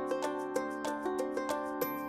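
Background music: a quick, light tune of plucked-string notes in a steady rhythm.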